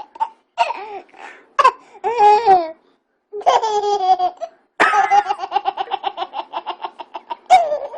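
Baby laughing in high-pitched bursts, ending in a long string of quick laugh pulses in the second half.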